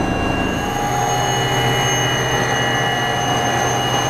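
Cabin noise inside an Airbus H160 helicopter in flight: its twin Safran Arrano turboshaft engines and rotor drive give a loud, steady whine over a low hum. A higher whine comes up about half a second in and then holds steady.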